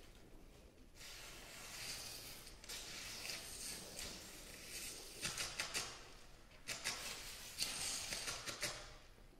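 Paper played as a percussion instrument by several players: rustling and crinkling paper noise in phrases, with dense crackling in the second half.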